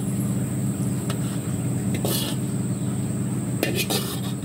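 A steady low machine hum, engine- or motor-like, with a steady thin high tone above it. A few faint clicks and a brief hiss about two seconds in, and a cluster of clicks near the end.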